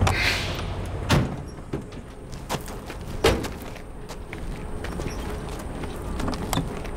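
Vintage fire truck's air brakes hiss as it comes to rest, then two heavy cab-door slams about two seconds apart, with the engine's low running underneath and lighter clicks and steps afterwards.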